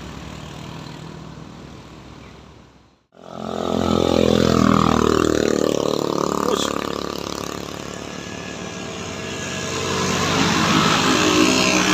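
Vehicle engines working up a steep climb. One engine fades away, the sound cuts out completely for a moment about three seconds in, then a louder engine comes in, easing off around the middle and rising again near the end.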